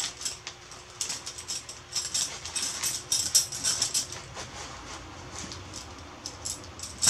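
Nylon stuff sack rustling as it is untied and opened, with a bundle of metal tent pegs clinking as they are drawn out of it. Busiest in the first four seconds, then sparser handling.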